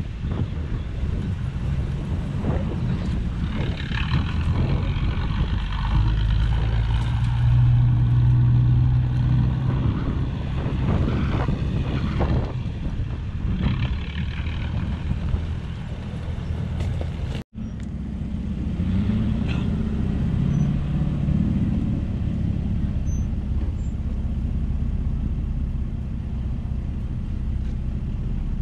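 Toyota FJ Cruiser's 4.0-litre V6 engine running while the truck drives over rough grassland, its pitch rising and falling with the throttle, with scattered knocks and rattles. The sound breaks off for an instant a little past halfway.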